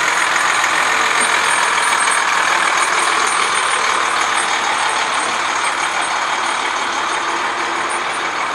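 A large vehicle, a truck, passing slowly with a steady loud noise that eases slightly near the end.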